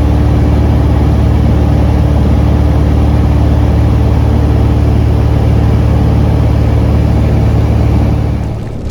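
A loud, steady engine-like drone running evenly, with a brief dip near the end.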